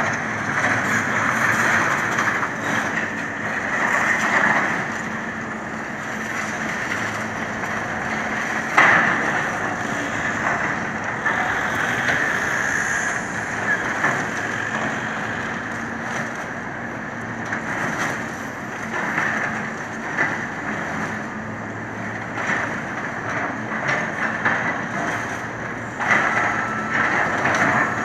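A Caterpillar excavator and track loader working a demolition site: diesel engines running steadily under the clatter and crunch of broken concrete being grabbed and dropped, with a sharp knock about nine seconds in. A reversing alarm starts beeping near the end.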